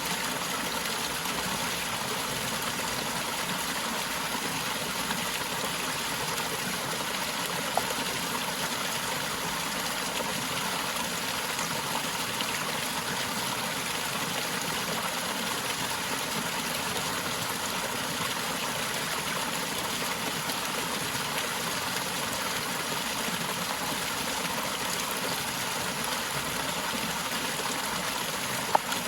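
Forest waterfall rushing steadily: an even, unbroken water noise. Two brief faint clicks sound about eight seconds in and just before the end.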